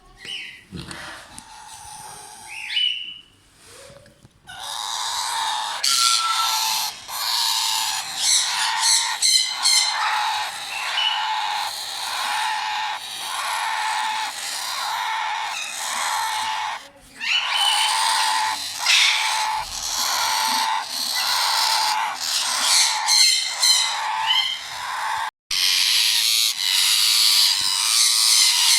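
Indian ringneck parakeet chicks squawking: a few short calls at first, then from about four seconds in, harsh, pulsing, nearly continuous squawks with brief breaks.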